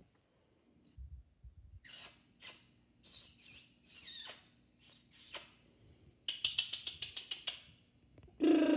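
Small puppies yipping and squealing in play: a series of short high squeaks, then a quick run of sharp yips. A loud steady tone starts just at the end.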